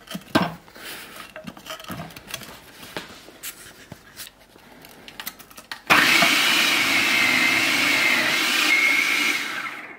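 Food processor switched on about six seconds in, its motor running with a steady high whine as it shreds onion through the grating disc, then spinning down just before the end. Before it starts, light knocks of onion pieces being fitted into the plastic feed tube.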